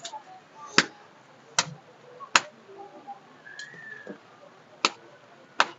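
A ball of roti dough slapped flat between the palms by hand, a sharp slap about every 0.8 s: four slaps, a pause, then two more near the end.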